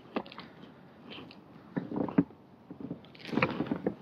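Fishing rod and reel being handled aboard a kayak: irregular clicks, rattles and knocks of the reel and gear, loudest about two seconds in and near the end.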